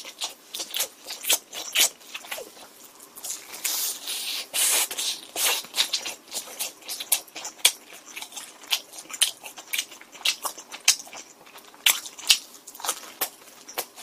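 A person chewing a bite of thin-crust honey pizza: irregular wet smacking and crisp crunching clicks, with a denser burst of crunching about four seconds in.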